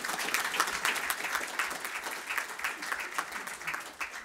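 Audience applauding: many hands clapping at once, dying away over the last second.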